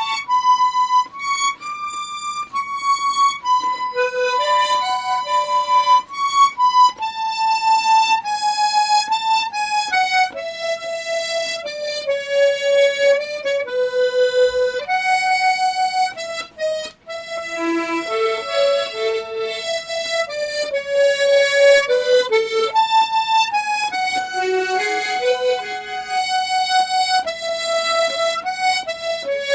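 Harmonica playing a slow melody in broken chords: held melody notes, with short lower chord notes sounding beneath them now and then.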